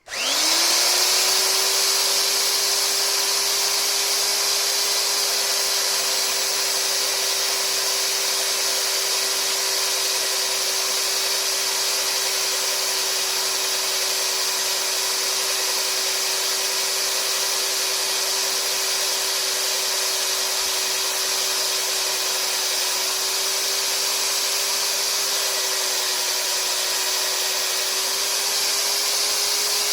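Electric mag drill motor spinning up and then running steadily while it drills out a damaged head-stud thread in a cast-iron engine block for a Helicoil insert. The pitch sags briefly near the end as the bit takes more load.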